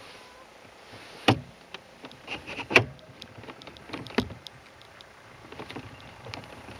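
Soapbox cart rolling downhill on bicycle wheels: a steady low rolling rush, with sharp knocks and rattles from the cart's body over bumps in the road, the three loudest a little over a second, nearly three and about four seconds in.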